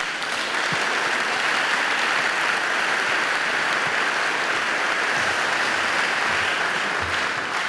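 Audience applauding steadily, the clapping beginning to die away near the end.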